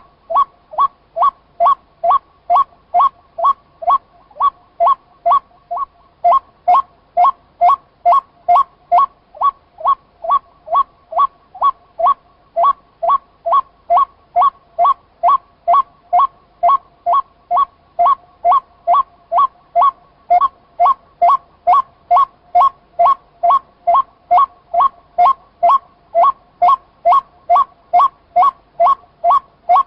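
White-breasted waterhen call: a monotonous, unbroken series of short two-toned notes, about two a second.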